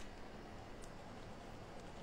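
Quiet room with a few faint crinkles from a plastic bag of shredded cheese being handled and tipped.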